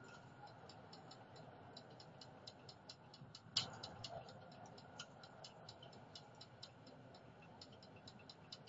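Faint running noise inside a moving tram's cab, with many light, irregular ticks and clicks and one louder click about three and a half seconds in.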